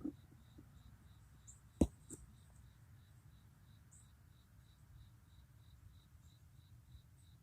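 Faint, evenly repeated high-pitched chirps, about two and a half a second, typical of an insect, with one sharp click about two seconds in over a low steady hum.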